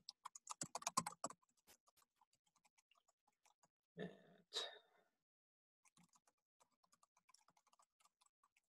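Faint computer keyboard typing: quick runs of soft key clicks that thin out and pause in the middle, then pick up again near the end, with two brief louder noises about four seconds in.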